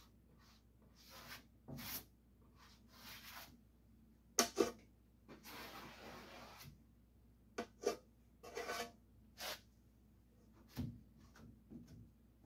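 Scattered handling sounds of hand work: short rubs and scrapes, with a few sharp clicks and knocks, the loudest a pair of clicks about four seconds in, followed by a scrape lasting about a second and a half.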